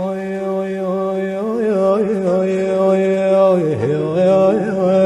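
Music: a male singer holding one long, ornamented vowel in a Moroccan popular song. The note holds steady at first, then wavers and slides down and back up about three-quarters of the way through.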